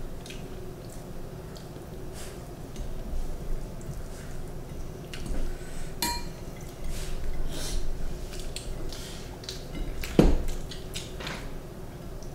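Tableware clinking during a meal: scattered light taps and clicks of spoons and fingers against plates and bowls, with one clear ringing clink about six seconds in and a heavier knock about ten seconds in.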